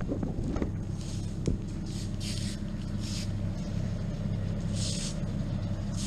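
An engine running steadily at a low, even speed, with a few short bursts of hiss over it.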